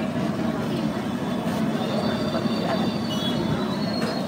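Ram ladoo fritters frying in a large wok of hot oil over a stall burner: a steady rumbling sizzle, with crowd voices behind it. A faint thin high whine comes in about two seconds in.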